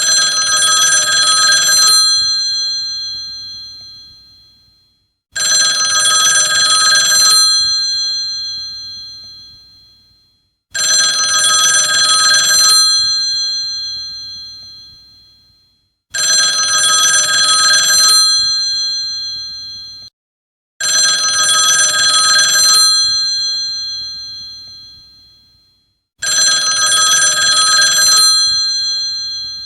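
Old telephone's bell ringing, six rings about every five and a half seconds: each a two-second trill that then rings on and fades away.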